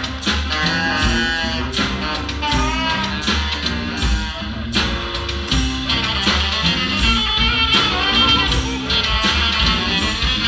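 Live band music, a guitar to the fore over bass and drums with a steady beat.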